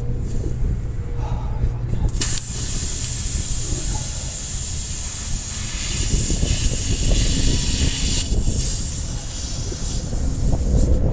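Air hissing steadily from a punctured tire during a plug repair, starting abruptly about two seconds in and cutting off near the end, over a steady low rumble.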